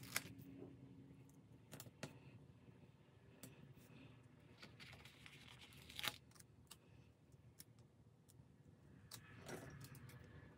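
Faint paper handling: a sticker sheet rustling and stickers being peeled off and pressed onto planner pages, with scattered light ticks and crinkles. The sharpest ticks come just after the start and about six seconds in.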